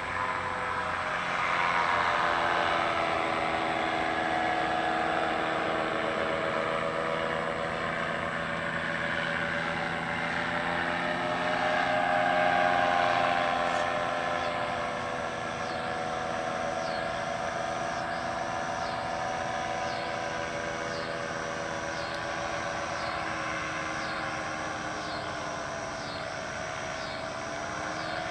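Paramotor's backpack engine and propeller droning as the powered paraglider flies past, its pitch wavering slightly; loudest as it passes close, then fading as it flies away. From about halfway on, a high chirp repeats roughly once a second.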